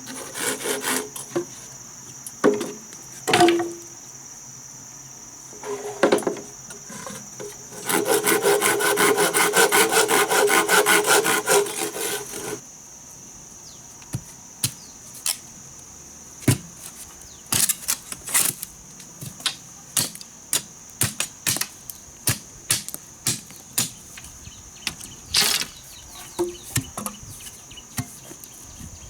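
Hand work on wood: a few scrapes and knocks, then about four seconds of rapid rasping strokes like a hand saw cutting, then a long run of sharp separate knocks. Insects chirr steadily throughout.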